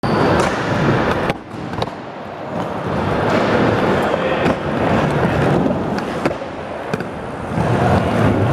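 Skateboard wheels rolling on a concrete skatepark floor, a steady rumble broken by a few sharp clacks of the board.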